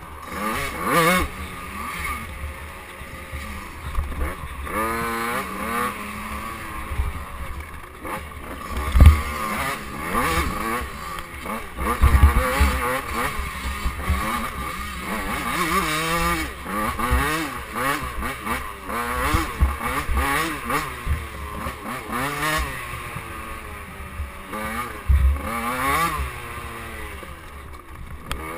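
KTM 85cc two-stroke dirt bike engine revving up and dropping back again and again under hard riding. Heavy thumps from bumps break in, the loudest about nine seconds in and others around twelve and twenty-five seconds.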